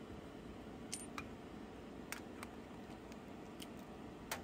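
Faint, sharp ticks, about seven scattered across four seconds, over a steady low machine hum.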